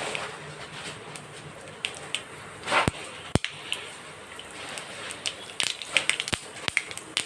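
Mustard seeds spluttering in hot oil for a tempering: scattered sharp pops over a low sizzle, coming more often in the last couple of seconds.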